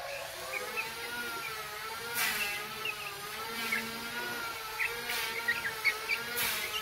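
Young chicks peeping softly in short high chirps while they feed at a trough, with brief rustles and pecks about two, five and six seconds in. Under them runs a steady, slightly wavering machine-like whine.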